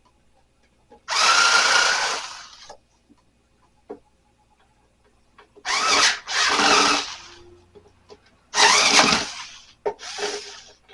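Cordless power drill backing screws out of furniture, run in several short bursts with pauses between them.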